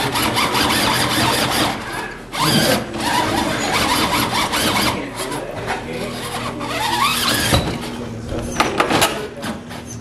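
Electric motor and gears of a 1/10-scale RC rock crawler whining as it drives over the course, with people talking in the room. A few sharp knocks near the end.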